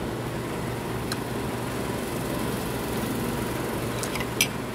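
Steady background din of a restaurant dining room, with light clinks of cutlery on a plate about a second in and near the end.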